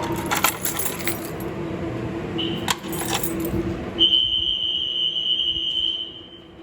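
Clicking and rattling, then a short high-pitched electronic beep about two and a half seconds in. About four seconds in comes a steady high tone that lasts about two seconds. This is a fire alarm system's electronic sounder going off during a walk test.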